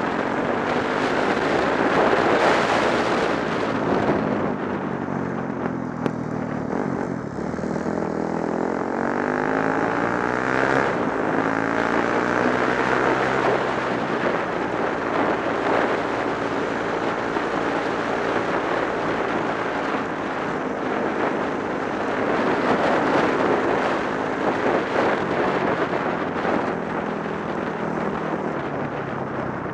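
Dirt bike engine running while riding, its pitch rising and falling with throttle and gear changes, over steady rushing noise.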